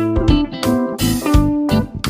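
Background music: a guitar-led track with plucked notes over a steady beat.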